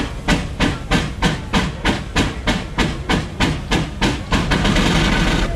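McLaren steam road locomotive working hard under load on a belt-driven dynamometer, its exhaust beating sharply up the chimney at about three beats a second. About four and a half seconds in, the beats run together into a continuous loud rush of steam as the dyno belt slips off and the engine loses its load.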